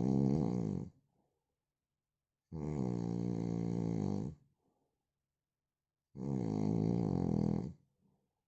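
A man snoring in a slow, regular rhythm. One snore ends about a second in, then two full snores of about two seconds each follow, each a pitched, rasping sound with quiet gaps of about two seconds between them.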